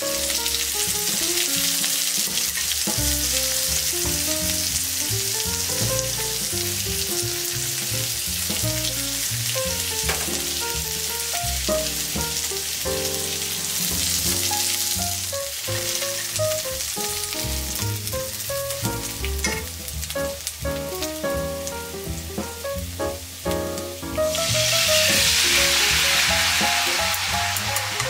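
Sliced boiled bamboo shoots sizzling in sesame oil in a frying pan, stirred with chopsticks. The sizzle swells sharply near the end as the liquid seasonings go into the hot pan.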